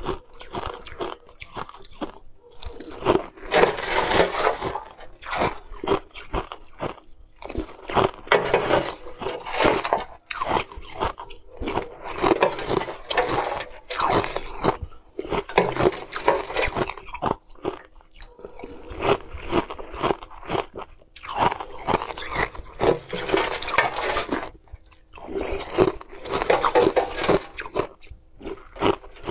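Close-up crunching and chewing of chunks of frozen flavoured ice, coming in repeated bouts of a couple of seconds with brief pauses between bites.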